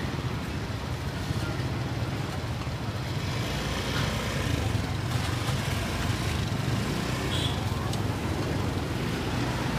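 Steady street traffic noise: a continuous low rumble of passing motor vehicles.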